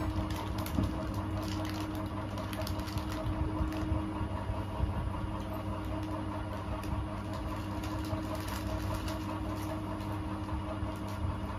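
A steady low hum, like a running fan or small motor, with scattered faint clicks and crackles.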